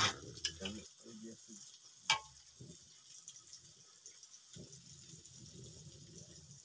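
Food sizzling in oil in a wok over a wood fire, with a clatter as food goes into the pan at the start and a single sharp knock about two seconds in. Near the end comes a low rush of breath, someone blowing on the fire to keep it burning.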